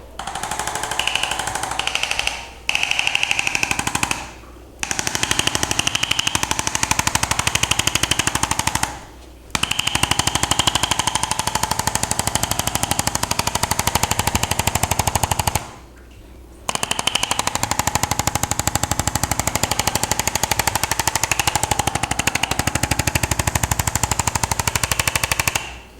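Percussion massage gun hammering rapidly on the arm in long even runs, broken by four short pauses.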